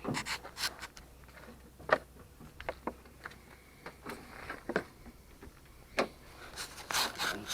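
Scattered clicks and knocks of plastic and metal truck door-handle parts being handled, with sharper single clicks about two, six and seven seconds in.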